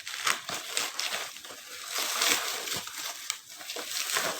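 Plastic packaging crinkling and rustling as it is handled and unwrapped, with many small crackles.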